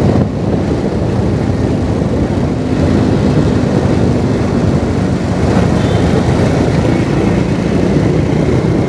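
Steady engine and road noise from the vehicle the recordist is travelling in, with a low engine hum under an even rush of wind and traffic.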